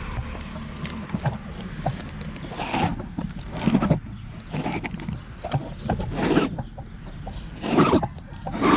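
Fingers rubbing and scraping on a GoPro's cracked protective lens cover right at the camera, handling noise in a series of short scrapes about a second apart.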